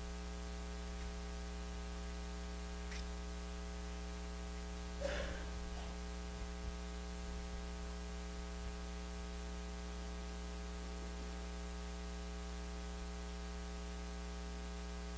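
Steady electrical mains hum with a ladder of overtones and a little static, carried on the church's recording or sound system during a silent pause. About five seconds in there is a faint brief rustle.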